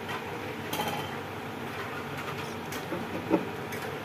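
A few light clicks and knocks of plastic parts and silicone tubing being handled and pushed onto the mixing bowls of a coffee vending machine, the loudest near the end, over a steady background hum.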